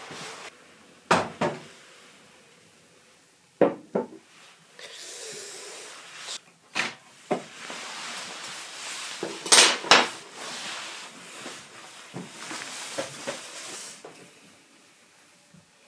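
Household handling sounds: a string of sharp knocks and clicks, like containers, lids or a drawer being moved, with soft rustling between them. The loudest are two knocks about two-thirds of the way through.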